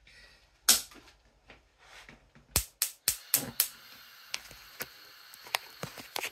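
Gas hob burner being lit: a run of sharp igniter clicks, about four a second, then the gas flame burning with a steady hiss, with a few more clicks.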